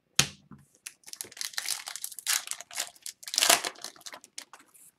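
A foil hockey card pack wrapper crinkling and tearing as it is ripped open by hand, in a dense run of crackling rustles that begins about a second in. A single sharp knock comes just before it.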